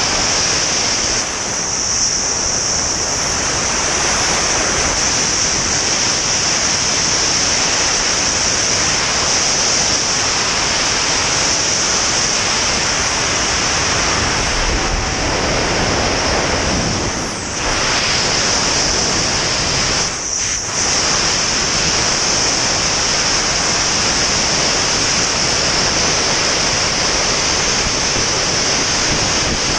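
Wind rushing over a camera microphone in skydiving freefall: a loud, steady rushing hiss, dipping briefly twice past the middle.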